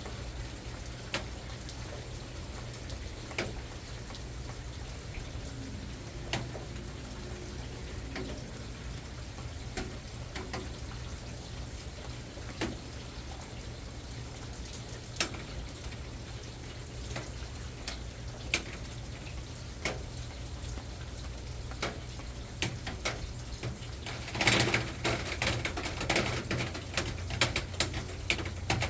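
Light rain: scattered raindrops tapping one at a time over a steady low rumble. Near the end comes a short flurry of louder, quicker drops.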